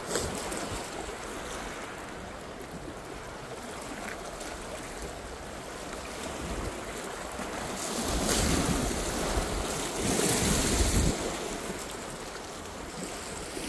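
Sea water washing and surging around seaweed-covered concrete on the shore, with wind on the microphone. The wash swells louder twice, about eight and ten seconds in.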